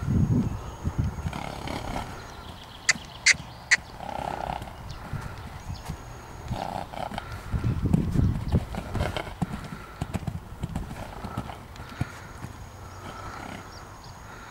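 Hoofbeats of a loose horse trotting on a gravel arena, with uneven low thuds. Three sharp clicks come about three seconds in.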